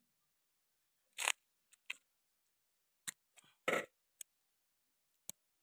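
Short, sharp metal clicks and snaps, about seven spread unevenly over a few seconds, as a lock ring is worked onto the chromed piston rod of a tractor's hydraulic steering cylinder to hold its new oil seal in place.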